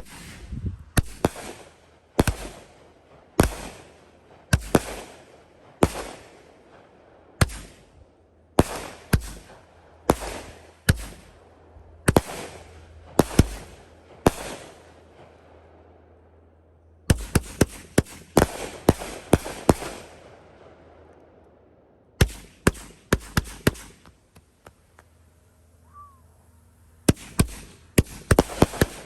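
A Doremi 'Polar Vortex' 500-gram, 40-shot firework cake firing. It starts with single shots about one a second, each a sharp bang. Then come short pauses broken by three quick volleys of rapid bangs.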